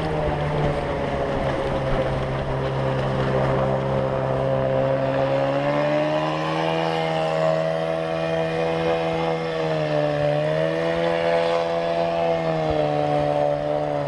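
Water-jet outboard motor of a small inflatable boat running steadily, its pitch rising about six seconds in and dipping briefly around ten seconds.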